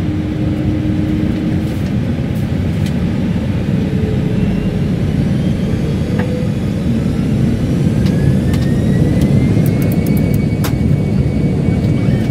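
Airbus A318 jet engines running with a steady deep rumble, heard from inside the aircraft as it lines up on the runway. About seven seconds in, a whine rises in pitch over a few seconds and then holds steady as the engines spool up for takeoff. A few light clicks come near the end.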